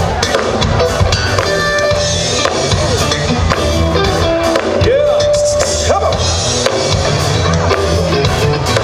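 A live band playing loud dance music, a drum kit keeping a steady beat under held, sliding melody notes.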